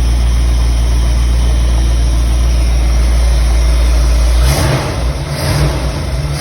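Car engine running steadily at idle; about four and a half seconds in its sound breaks into uneven surges.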